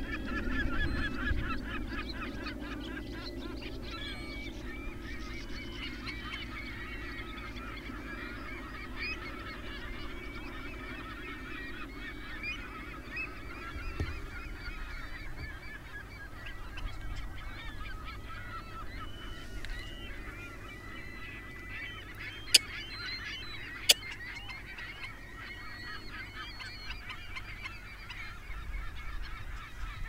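Many wetland birds calling at once: a dense, continuous chatter of short, overlapping calls. Two sharp clicks stand out about two thirds of the way through.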